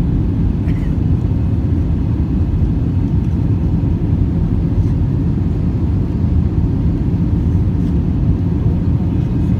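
Cabin noise inside an Airbus A320-214 climbing after takeoff: the steady low rumble of its CFM56 engines and the airflow, heard from a seat over the wing.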